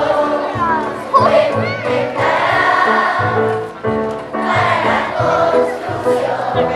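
A large children's choir singing a song in unison, over instrumental accompaniment with steady low notes that change in steps.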